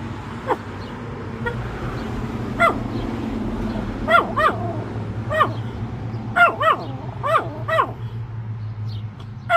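An animal's short honking calls, repeated about ten times and often in quick pairs, each rising then falling in pitch, over a steady low hum.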